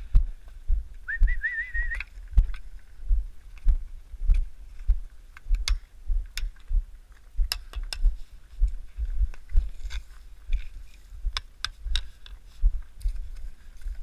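A person whistles a short wavering note about a second in, calling the cows along. Steady footsteps thud throughout as the walker follows the herd, with scattered small clicks and crunches.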